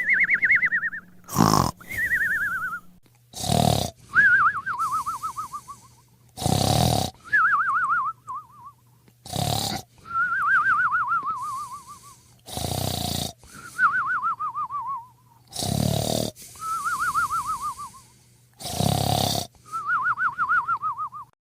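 Cartoon snoring sound effect: a loud snore on the in-breath, then a wavering whistle that slides down in pitch on the out-breath. The cycle repeats about every three seconds and stops near the end.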